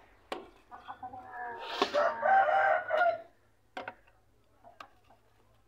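A rooster crows once, a long call of about a second and a half. Around it come a few sharp clinks of a metal skimmer against the aluminium cooking pot.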